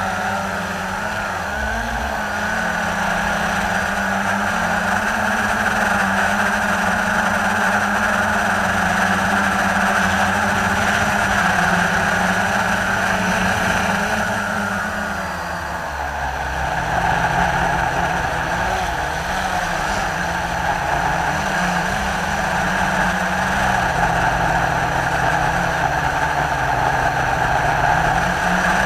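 Blade 350 QX3 quadcopter's electric motors and propellers buzzing steadily, heard up close from the onboard camera. The pitch drops about halfway through, then wavers up and down as the throttle changes.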